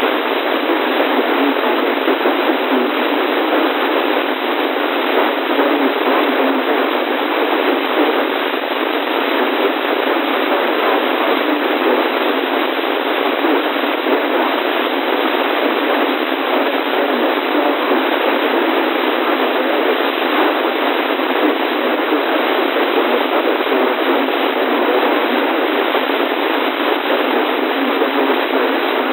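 Radio static: a steady, even hiss with no bass, carrying no voice or tones.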